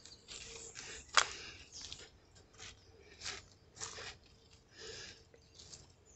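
Irregular crunching and rustling of dry leaf litter, about a dozen short crunches with one sharper snap about a second in.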